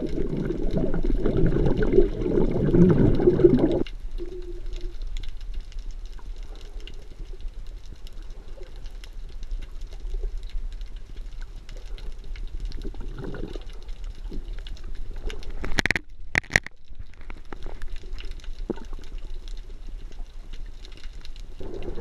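Underwater sound picked up by a GoPro in its waterproof housing. Water churns and bubbles loudly around the camera for the first four seconds as it goes under, then gives way to muffled underwater noise with faint gurgles and a couple of sharp clicks about sixteen seconds in.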